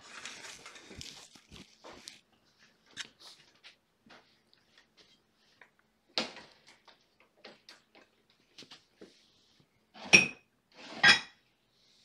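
Scattered light clicks, knocks and rustling of things being handled in a small room, with two louder clattering knocks near the end.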